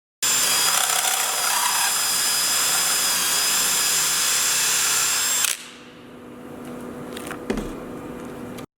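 Power drill running a carbide-tipped hole saw through perspex: a loud, steady cutting noise with a high whine. About five and a half seconds in the cutting stops suddenly, and a quieter steady hum goes on, with a single knock near the end before the sound cuts off.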